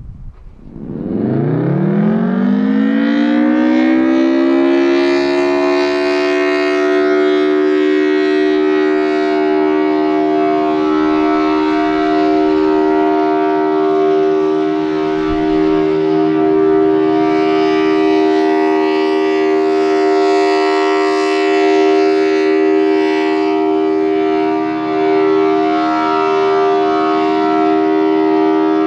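Federal Signal Thunderbolt 1000T tornado siren with a 4/5-port rotor winding up. Its pitch rises steeply over the first few seconds, then it holds a loud, steady two-note chord: the full steady alert signal.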